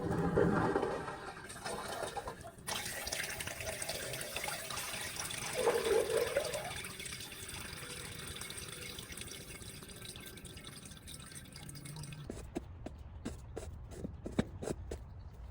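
Water running from a tap into a sink, followed by a series of light clicks and knocks near the end.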